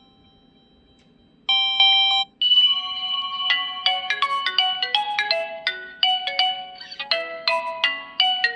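LG Stylo 2V preloaded ringtone playing: a previous tone dies away, a short bright chord sounds about a second and a half in, then a quick, bright melody of struck-bar notes starts, several notes a second.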